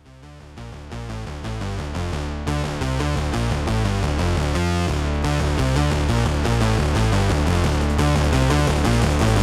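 Background music: an electronic track with a steady beat and synthesizer, fading in over the first couple of seconds.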